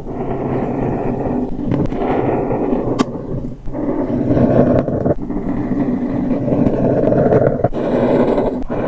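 A cup giving off a loud, rough growl-like rasp in long strokes, with brief breaks about 2, 3.5, 5 and 7.7 seconds in.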